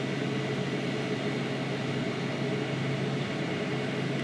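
Steady low hum over an even soft hiss: constant background machine noise in the room, with no distinct events.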